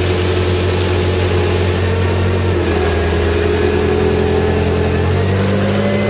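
Engine of the bin-tipping lift machine running steadily, its pitch shifting up slightly about halfway and again near the end, while fermented Malbec must of skins and wine pours out of the tipped bin into a stainless steel tank.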